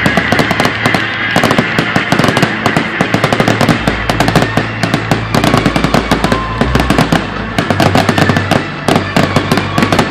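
Fireworks going off in a dense, continuous crackle of sharp pops and bangs, many a second without a break.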